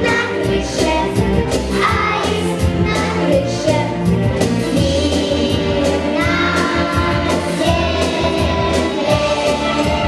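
A song sung by children's voices over a backing track with a steady beat.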